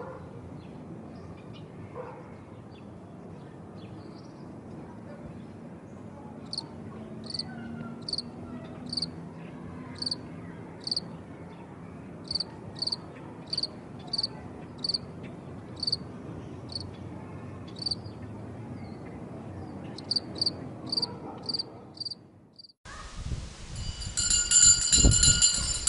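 A cricket chirping outdoors in short, regular high chirps, about one every half second, in runs with brief pauses, over a soft rural background hiss. Near the end the sound cuts to a loud, steady high ringing.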